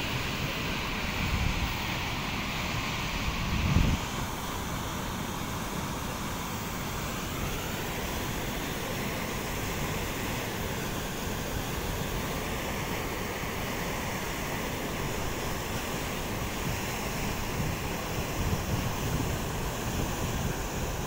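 A waterfall in spate after days of continuous rain: muddy floodwater pouring over a rock cliff with a steady rush of falling water. In the first few seconds there is low buffeting on the microphone, ending in a short thump just before the four-second mark.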